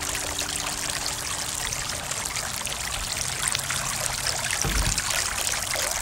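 Water splashing and trickling steadily as it spills over the scalloped edges of a three-tier stone garden fountain into the basins below. A brief low thump about five seconds in.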